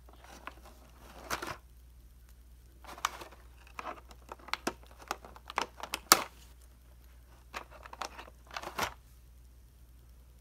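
Clear plastic blister-pack tray crinkling in short bursts as it is handled, with a run of sharp clicks as scissors cut a small accessory free, the loudest about six seconds in.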